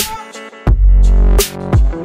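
Outro music: an electronic track that opens with a sharp hit, then brings in a deep bass about two-thirds of a second in, with repeated drum hits over it.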